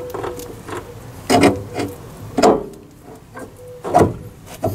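Metal knocks and scrapes from a Citroën ZX's lower wishbone and new ball joint being pushed down by hand to line the ball joint pin up with the hub carrier. Three louder clunks come about a second and a half, two and a half, and four seconds in.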